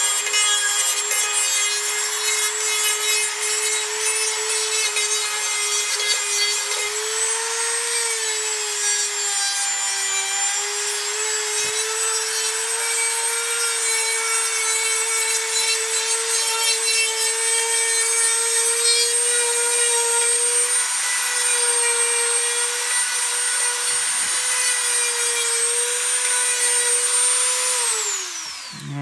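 Dremel rotary tool with a small sanding disc running at high speed: a steady high-pitched whine with a gritty rasp as it sands the sharp cut edges of PVC pipe smooth. The pitch dips briefly about ten seconds in, and near the end the tool is switched off and winds down.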